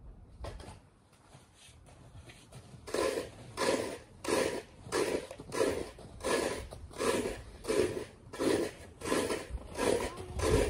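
Footsteps crunching in deep, packed snow, starting about three seconds in and repeating at a steady walking pace of about one and a half steps a second.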